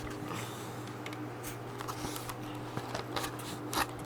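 Scattered light clicks and knocks with soft rustling as an SCM Coronet Super 12 electric typewriter is handled and turned over, over a steady low hum.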